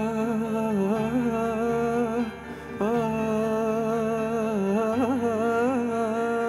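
Long Arabic-style sung vocal adlib: a single voice holding sustained notes, bending and ornamenting them with quick turns, over a steady low backing. The voice breaks off briefly about two seconds in, then comes back with an upward scoop.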